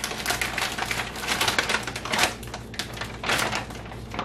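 A plastic bag of ground flaxseed crinkling and rustling as it is handled and scooped from, in a quick run of clicks with louder bursts about two seconds and three and a half seconds in.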